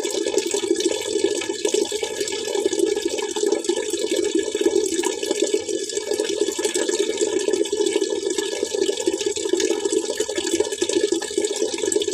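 Water splashing and trickling steadily, a continuous, even rush with no breaks.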